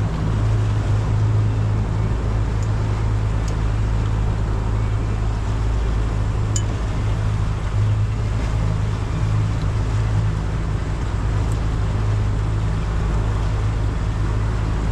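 Yamaha 300 four-stroke V6 outboard running steadily at low speed, a constant low hum under wash of water and wind noise.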